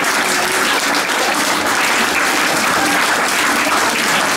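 Small audience applauding steadily, many hands clapping together.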